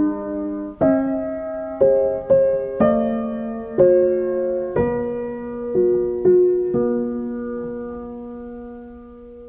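Background music: slow, gentle solo piano playing struck notes and chords about once every half second to a second, ending on a held chord that slowly fades.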